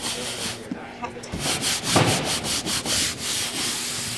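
A cloth wiped briskly back and forth across a plastic folding tabletop by a gloved hand, a run of rapid rubbing strokes with a short pause about a second in.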